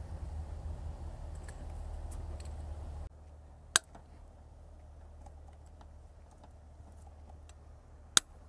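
Light metallic clicks and taps of a socket wrench and extension being worked onto an alternator mounting bolt, with two sharp, louder clicks about four seconds apart. A low hum stops abruptly about three seconds in.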